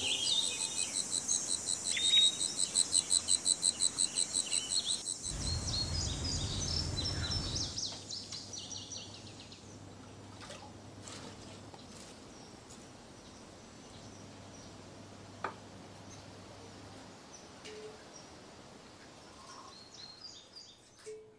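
A bird chirping in quick repeated notes over a fast, high-pitched insect buzz for the first several seconds, with a brief low rumble around the middle. After that only a faint background remains, with a few light clicks.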